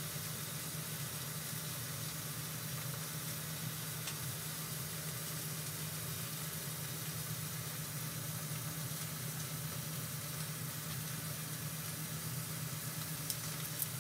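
Barbecue-glazed chicken drumsticks sizzling in a hot air fryer basket: a steady hiss over a low, even hum.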